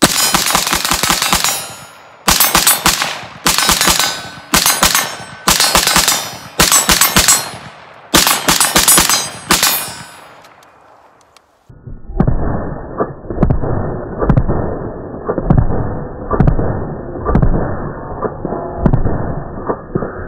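Short-barreled AR-15 with a 7-inch 5.56 upper firing rapid strings of shots, about eight quick bursts of several rounds each, every shot sharp and ringing. About 12 seconds in the shooting stops and music with a steady beat takes over.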